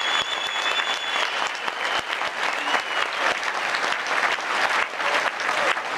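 Concert audience applauding, with a high steady whistle held over the first second and a brief one about halfway through.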